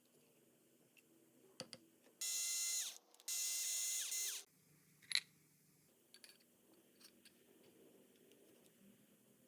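A small electric motor power tool is run twice in short bursts, a high whine of about a second each. It slides down in pitch as it spins down after each run. A sharp click follows, with light handling clicks around it.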